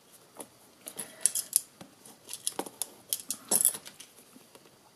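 Strips of double-sided tape and cardstock being handled and pressed down by fingers: a scattered run of short, crisp clicks and crackles, loudest about three and a half seconds in.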